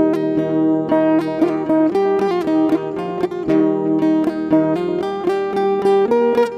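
Background music: a plucked acoustic guitar playing a run of quick notes.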